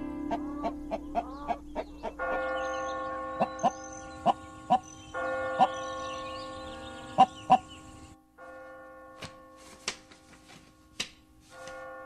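Chickens clucking in short, scattered calls over a steady, bell-like held drone that cuts in and out.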